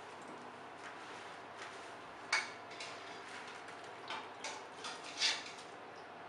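Metal utensils clinking against cookware a handful of times over a steady hiss, the loudest clink about two seconds in and a quick cluster of clinks near the end.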